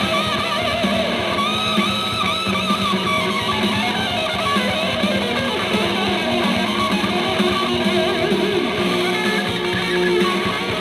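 Live hard rock recording played from a vinyl record, with electric guitars playing continuously.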